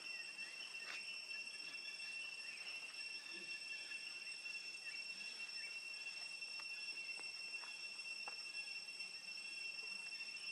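Faint, steady high-pitched insect trill, a single unbroken tone, with a few faint scattered ticks.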